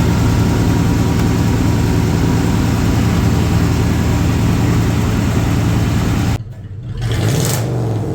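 Chevy K30 Squarebody's V8 engine running steadily and loudly. About six seconds in it drops off sharply, then rises again with a short rev near the end.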